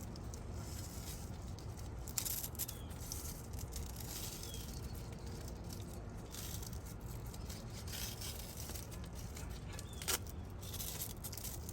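Hands working a Velcro wheel strap on a bike rack: faint rustling and a few short scratchy rasps, with a sharp click about ten seconds in, over a steady low rumble.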